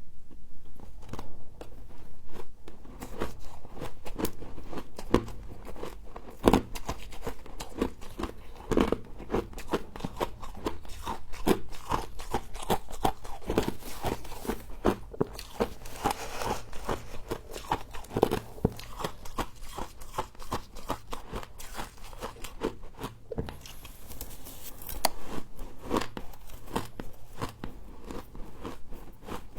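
Close-up crunching and chewing of frost in the mouth: dense, irregular crisp crunches, one bite after another.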